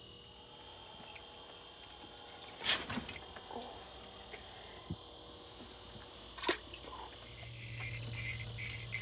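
Two sharp knocks from handling gear, about three seconds and six and a half seconds in. Then, from about seven seconds, an ice-fishing reel's drag clicks rapidly as line pulls off it, over a low steady hum. The angler calls the drag terrible.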